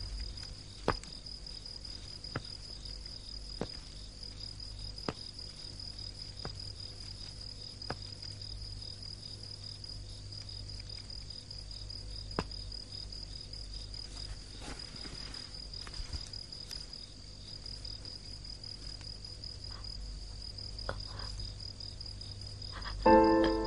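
Crickets chirping steadily in a night ambience, over a low hum, with faint soft clicks about every second and a half. Music comes in loudly near the end.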